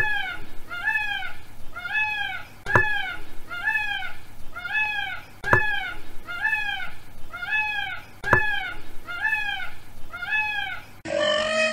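Indian peafowl calling: a steady series of short, rising-and-falling, cat-like honks, about one every 0.8 seconds. A sharp click comes about every three seconds.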